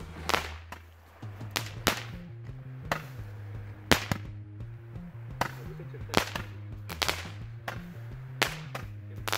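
Fireworks going off: about fifteen sharp bangs and cracks at uneven intervals, over background music with a low bass line.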